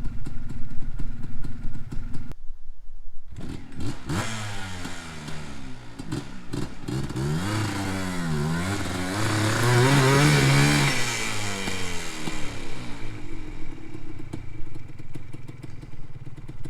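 Yamaha Blaster's single-cylinder two-stroke engine revving hard, its pitch rising and falling again and again, loudest about ten seconds in, as the quad is driven under load into a soft, mud-bottomed creek crossing. The sound drops out briefly about two seconds in.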